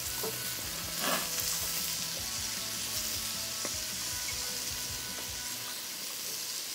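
Skewers of flap steak, pimientos de Padrón and spring onions sizzling steadily on a hot gas grill grate, with a brief louder sizzle about a second in as olive oil goes onto them.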